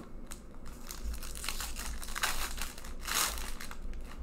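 Foil wrapper of a hockey trading-card pack being torn open and crinkled by hand: a series of crackling rips, the loudest about two and three seconds in.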